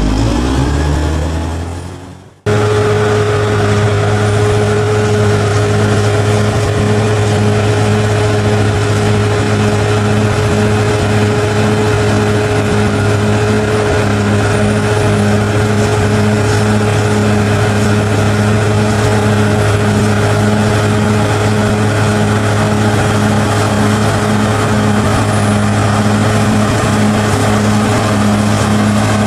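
Bulldozer engine: a falling-pitch sound fades out, then after a brief break about two and a half seconds in the engine runs at a constant speed as a steady low drone with a faint regular pulse.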